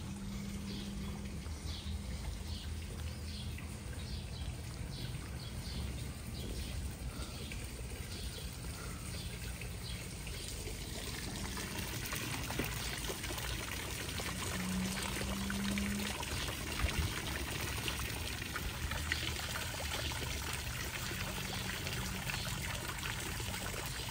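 Fountain water splashing and trickling into a stone basin, louder from about halfway through.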